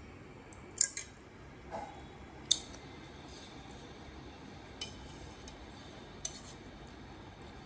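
Eating utensils, chopsticks and a plastic spoon, clicking and scraping against a frying pan and plate as noodles are eaten. There are about six short, sharp clicks, unevenly spaced.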